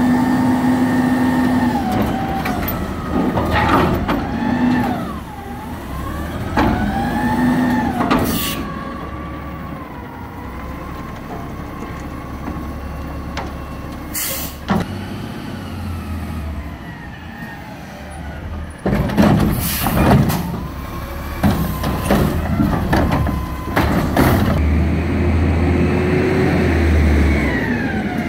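McNeilus front-loader garbage truck's engine revving up and down while its hydraulics whine, rising and falling, as the lifting arms and carry can are raised and lowered. Several loud metal bangs and clanks come from the arms and can, a cluster of them about two-thirds of the way through.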